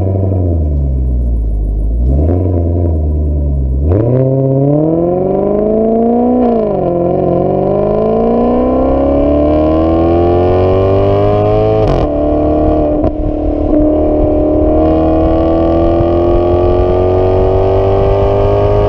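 Maserati GranTurismo engine accelerating hard: a low, wavering engine note, then from about four seconds in a rising pitch. The pitch dips at gear changes about six and a half seconds in and again around twelve seconds, then climbs steadily to the end.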